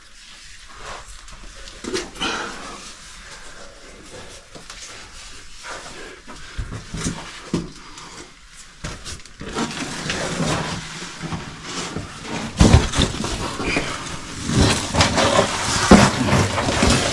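A caver breathing hard and grunting while squeezing up through a tight rock crawl, with scrapes and knocks of body and gear against the rock. It grows louder and busier about two-thirds of the way in.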